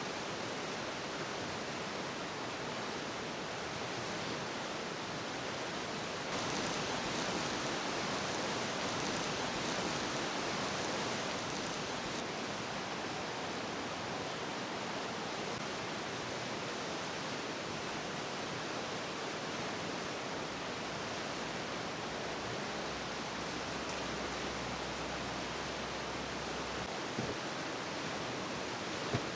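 Steady rushing noise, like running water, louder and brighter for several seconds starting about six seconds in.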